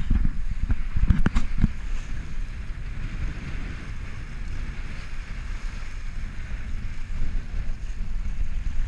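Wind buffeting the microphone and water rushing and hissing along the hull of a Cal 40 sailboat sailing fast in strong wind. A few sharp knocks in the first two seconds.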